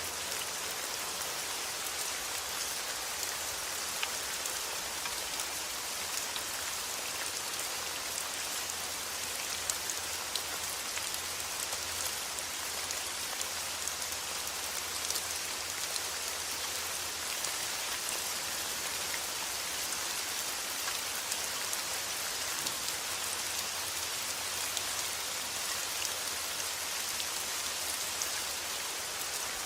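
Steady rain: an even hiss with scattered sharp ticks of individual drops.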